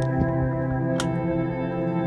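Ambient background music of held, sustained chord tones, with a short sharp strike about halfway through.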